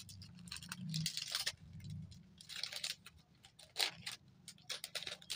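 Small plastic packet crinkling and rustling in the hands as it is handled and opened, in irregular short crackles.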